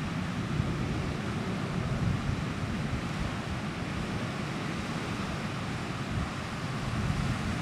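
Wind gusting across the microphone, a fluttering low rumble, over the steady wash of surf breaking on the beach.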